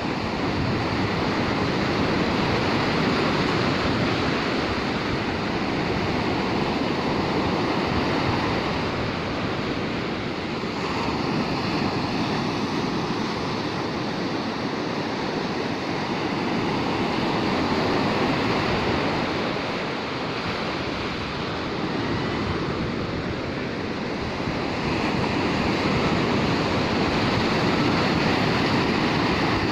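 Ocean surf breaking and washing up a sandy beach: a steady rushing that swells and ebbs every several seconds as the waves come in.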